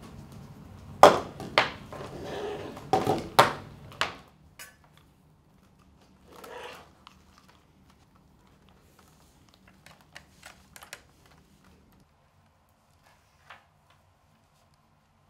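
Headphones and their cable being handled at a table: a run of sharp knocks and clatters over the first four seconds, then a few faint clicks. About twelve seconds in, the room tone cuts out to near silence.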